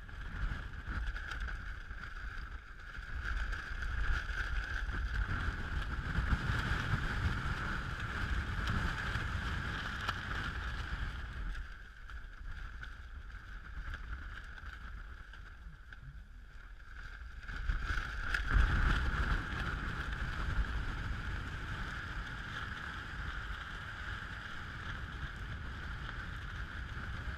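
Strong gusty wind buffeting the microphone: a rumble that swells and eases, with its biggest gust about two-thirds of the way in.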